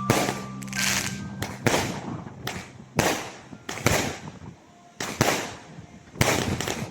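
A string of sharp bangs, about a dozen at irregular spacing, each trailing off with a short echo, like firecrackers going off.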